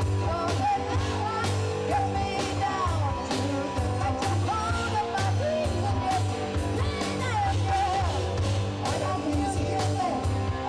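Live rock band playing: singing over electric guitar, bass and a steady drum beat.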